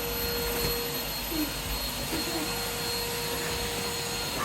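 Henry vacuum cleaner running steadily, its suction motor giving a continuous whooshing drone.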